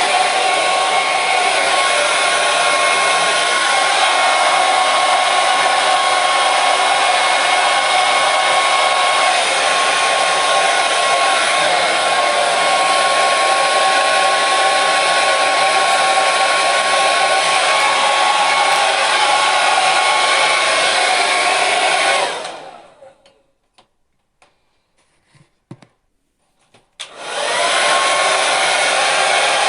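Hair dryer blowing steadily, a rush of air with a steady motor whine. About 22 seconds in it dies away over about a second, leaving a few seconds of quiet with faint clicks. It then spins back up to full speed.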